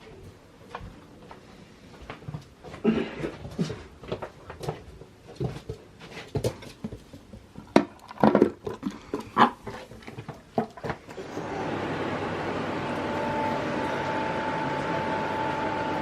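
A puppy eating from a bowl: a run of irregular clicks and knocks. About eleven seconds in, a steady whooshing hum starts and keeps going.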